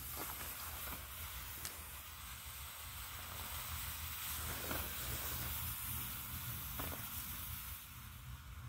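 Steady hiss of a burning smoke ball jetting out smoke, with a few faint ticks.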